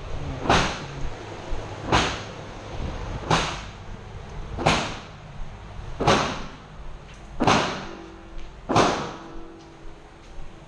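.22 Long Rifle firing seven single shots at a steady pace, about one and a half seconds apart, each crack followed by a short echo.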